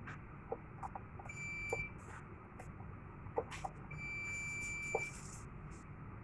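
Fire alarm control panel's buzzer giving two high, steady beeps, a short one about a second in and a longer one of about a second a little later, with several sharp clicks in between.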